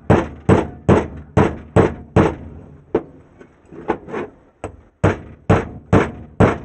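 Hammer blows on a starter motor housing, driving out its worn, loose shaft bushing. There is a run of about six sharp strikes a little under half a second apart, a few lighter taps in the middle, then about four more strikes.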